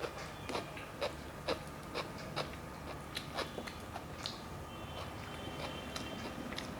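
Close-up eating sounds: wet mouth clicks and smacks while chewing food, an irregular one or two a second, over a faint steady hum.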